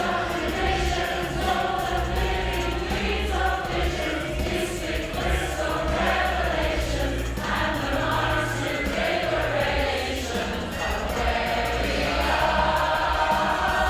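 Women's choir singing live, swelling a little louder near the end.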